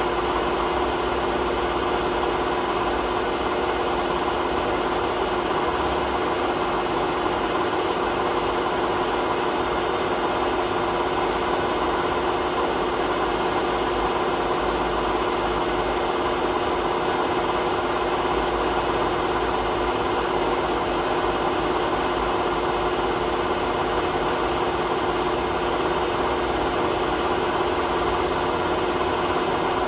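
Hotpoint WMA32 washing machine spinning at a steady speed, a constant drone and hum from the motor and drum, whose bearings are worn out.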